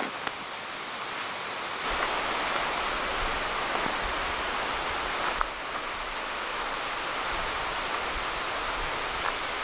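Steady rush of rain and flowing river water, a little fuller about two seconds in, with a few faint taps.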